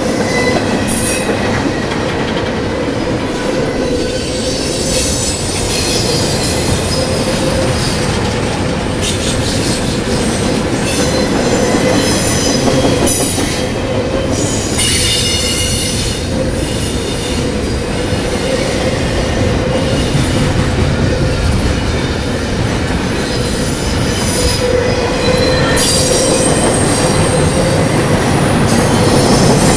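Double-stack container train's well cars rolling past, a loud steady rumble of steel wheels on rail. High-pitched steel-on-steel squeals come and go over it.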